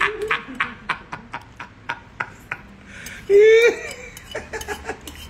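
A person eating: a steady run of sharp wet mouth-smacking clicks, about three or four a second. A short voiced sound with a wavering pitch comes about three seconds in and is the loudest moment.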